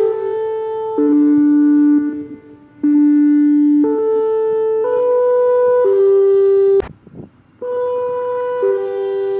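Emergency-alert broadcast tune: a slow melody of held, reed-like tones, one note about every second, stepping up and down. It breaks off twice, the second time after a sharp click about seven seconds in.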